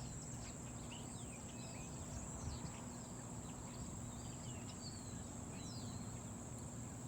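Insects, crickets among them, trilling steadily at a high pitch, with many short bird chirps scattered throughout over a low outdoor rumble.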